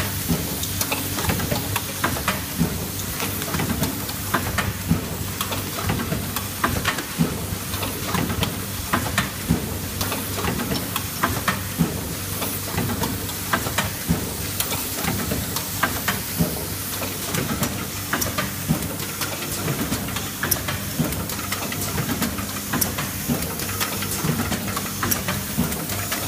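Automatic coffee-bag valve welding machine running. It gives a steady low hum under a constant high hiss, with many irregular sharp clicks and taps from its moving parts.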